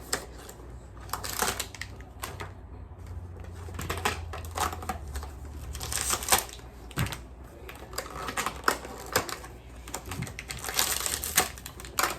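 Crinkling, rustling and clicking of plastic and cardboard toy packaging as small blind bags are taken out of a box, in quick irregular bursts.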